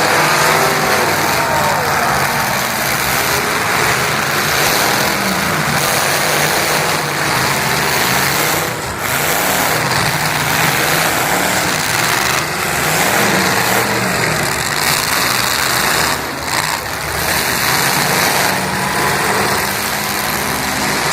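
Demolition derby car engines running loud over a dense wash of noise, with revving that rises and falls a few times.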